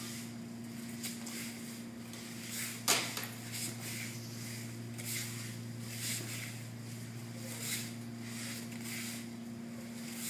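Cotton martial-arts uniforms rustling and bare feet scuffing on mats as two people grapple, in short swishes every second or so, with one sharp slap about three seconds in. A steady low hum lies underneath.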